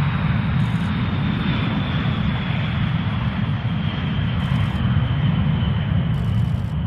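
Boeing B-52 Stratofortress's eight turbofan jet engines at takeoff power as the bomber races down the runway and lifts off: a steady jet roar with a deep rumble and a thin high whine that slowly falls in pitch.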